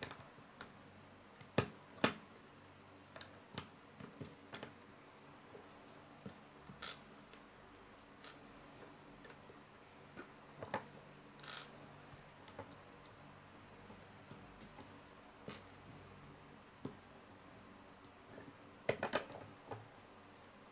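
Plastic Lego bricks clicking and snapping together as they are pressed into place by hand. Scattered sharp clicks with quiet gaps between them, a couple of louder snaps about two seconds in and a quick cluster of several near the end.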